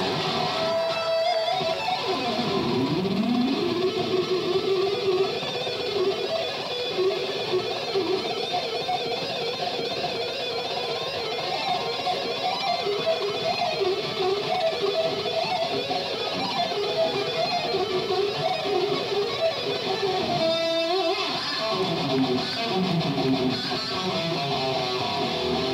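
Live electric guitar solo played through Marshall amplifiers: a run of sustained lead notes with swooping pitch dives and rises near the start and again near the end.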